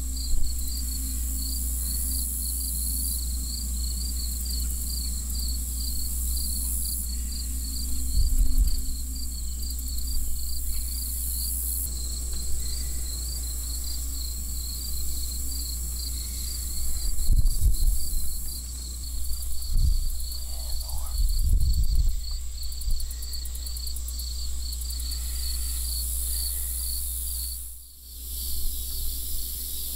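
Field insects chirping steadily, with a fast even pulse and a thinner, higher steady drone above it. A few short low rumbles break in now and then, most of them past the middle.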